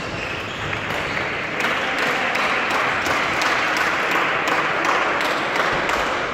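Reverberant badminton-hall din: a dense wash of noise that swells after about a second and a half, with many sharp racket-on-shuttlecock hits from the surrounding courts.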